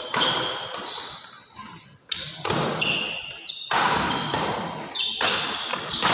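Badminton rally: about four sharp racket hits on the shuttlecock, roughly a second and a half apart, each ringing out in the large hall, with sneakers squeaking briefly on the wooden court floor between hits.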